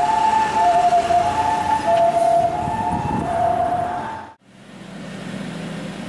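Japanese ambulance siren giving its two-tone 'pee-po, pee-po' call, a higher and a lower tone alternating. It cuts off abruptly about four seconds in, leaving a quieter low steady hum.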